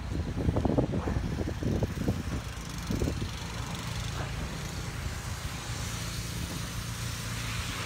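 A minivan drives by on a wet, plowed street, its engine and tyres a steady low rumble. In the first few seconds, short thumps and rustles sound up close.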